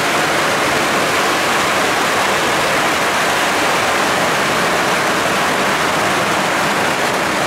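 A dense, continuous string of firecrackers going off, the pops running together into a steady, loud rushing hiss.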